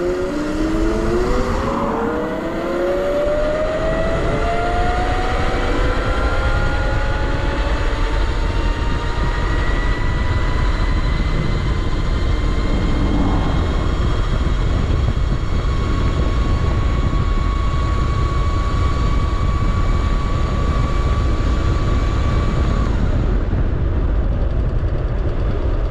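Razor RSF650 electric motorcycle's motor and drivetrain whining under full throttle on its slowest speed setting, the whine rising steadily in pitch as it accelerates, levelling off at top speed, then cutting off about three seconds before the end as the throttle is released. Heavy wind rumble on the microphone runs underneath.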